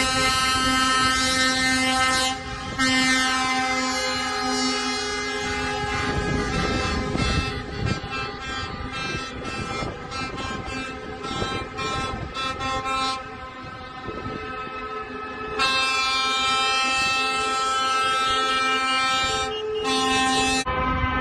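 Truck air horns sounding in long held blasts over the traffic of a passing convoy of lorries and cars. One long blast breaks briefly after about two seconds and runs on to about six seconds; shorter honks and traffic noise fill the middle, and another long blast starts about two-thirds of the way in.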